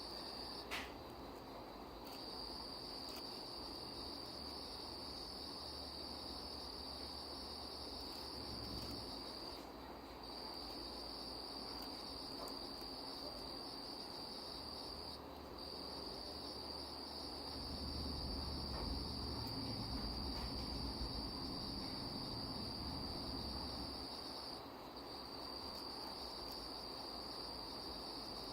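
Insects trilling steadily in one high, continuous chorus that breaks off briefly three times, with a single faint click about a second in.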